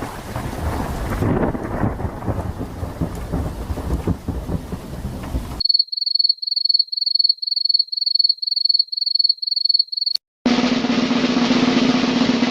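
Three unrelated sound effects in a row. First a rumbling, crackling noise for about five and a half seconds. It cuts off abruptly and is followed by a high electronic beep repeating about three times a second for some four seconds. Then, after a click and a short silence, a steady hissing noise with a low hum underneath.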